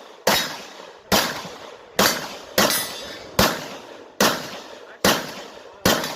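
Handgun shots fired at a steady pace, eight in all, a little under a second apart, each a sharp crack with a short echoing tail.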